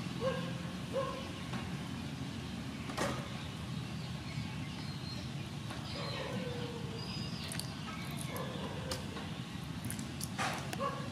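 Raw shrimp being peeled with a small knife and handled in a bowl of water: a few sharp clicks of knife and shell, with small splashes. Under it a steady low rumble and short chirps recur throughout.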